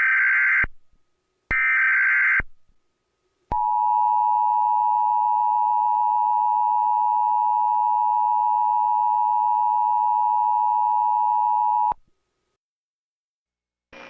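Emergency Alert System digital header bursts, two short screeching data bursts, followed about three and a half seconds in by the EAS attention signal: a steady, even alert tone held for about eight seconds that cuts off abruptly.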